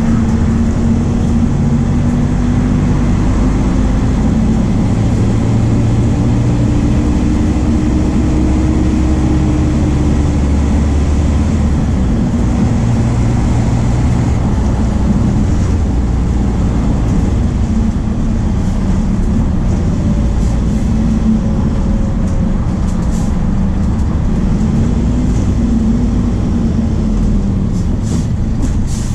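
MAN D0834 four-cylinder turbodiesel of a VW 17.230 OD bus running loud and steady under way, its pitch rising and easing back a few times as the revs change.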